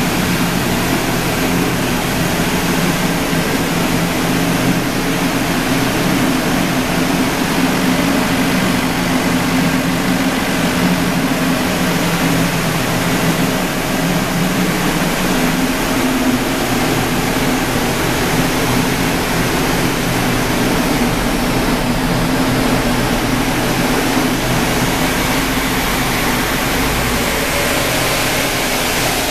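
Ford Ranger's 3.0L four-cylinder turbodiesel running on a chassis dynamometer: a steady engine hum under loud, even rushing noise. A deeper rumble comes in about halfway through and fades near the end.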